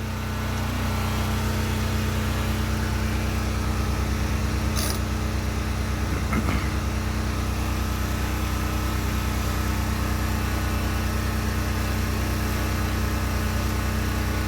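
A motor running steadily with a low hum, growing a little louder in the first second or so.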